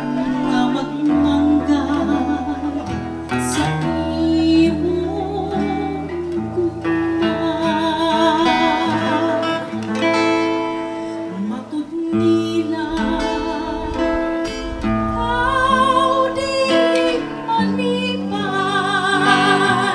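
Acoustic guitar accompanying a woman's singing voice, sung with vibrato on held notes.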